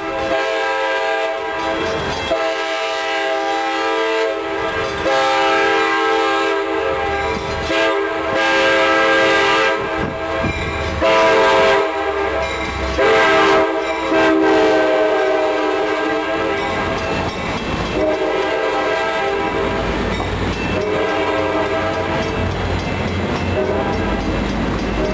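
Amtrak passenger train's horn sounding long, repeated blasts as the train comes down street-running track, with several louder blasts in the middle. Near the end the low sound of the F59PHI diesel locomotive pushing at the rear comes up as it draws level.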